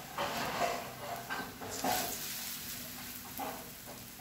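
Semolina (rava) batter frying in oil on a hot tawa, sizzling steadily with a few louder crackles.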